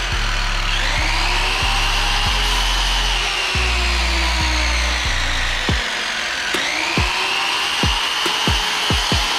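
Electric miter saw cutting baseboard trim. Its motor whine rises and holds about a second in, winds down and spins up again about six and a half seconds in. Background music with a steady beat plays underneath.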